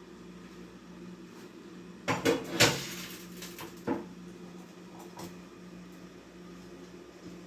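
A short cluster of knocks and clatter about two seconds in, then a single knock about a second later, over a steady low hum.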